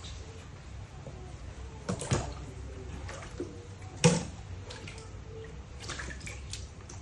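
Water splashing and sloshing in a plastic baby bathtub as baby monkeys climb in and out, with two louder splashes about two and four seconds in and a few lighter drips and splashes later.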